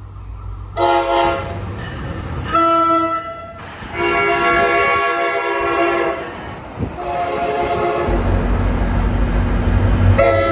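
Commuter train locomotive's multi-note air horn sounding two short blasts, one long blast and another short blast, with a further blast starting at the end. From about eight seconds in, the low rumble of the approaching train grows loud.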